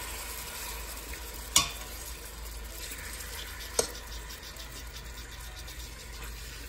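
Raw chicken breast pieces sizzling faintly in hot oil in a stainless steel pot as they are added by hand, a steady frying hiss. Two sharp clicks stand out, about a second and a half in and again near four seconds.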